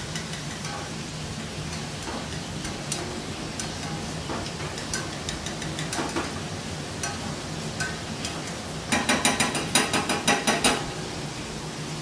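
Diced guanciale in olive oil in a small stainless-steel saucepan, stirred and scraped with a spatula, with scattered small clicks over a steady low hum. Near the end comes a quick run of about ten loud knocks.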